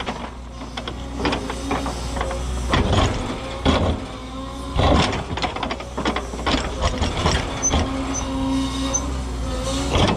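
Cat 314E excavator's diesel engine running steadily under load while its ripper tooth tears into hard bluestone. Repeated sharp cracks, knocks and scraping squeals come from rock breaking and grinding against the steel tooth, the strongest a few seconds in and again near the end.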